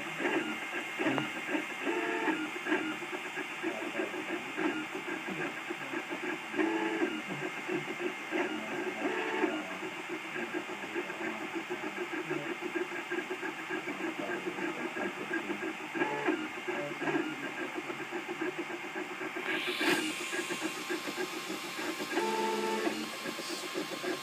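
Cubify 3D printer's stepper motors buzzing as the print head moves back and forth, breaking into short pitched whines every few seconds. A brief swish is heard about twenty seconds in.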